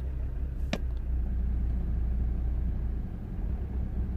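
2.0 CDTI four-cylinder diesel engine of a Vauxhall Astra J idling steadily just after a restart, still warming up, heard as a low rumble from inside the cabin. A single sharp click sounds about a second in.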